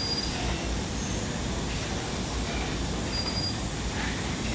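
Steady background rumble and hiss of workshop room noise, with three faint, short high-pitched tones.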